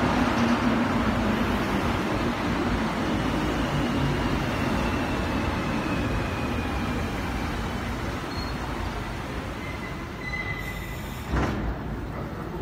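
Rubber-tyred Montréal metro train (MPM-10 Azur) pulling into the station and braking to a stop. Its running noise and a low motor whine fall away as it slows. A brief high squeal and then a short burst of noise come about a second before the end.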